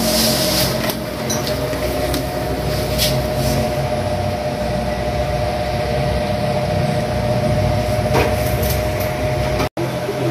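A steady mechanical hum with a constant whine, like a room air conditioner or fan, with a few faint clicks; it drops out for an instant near the end.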